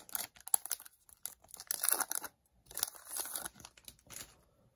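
Hockey card pack wrapper being torn open and crinkled, in several short bouts of crackling.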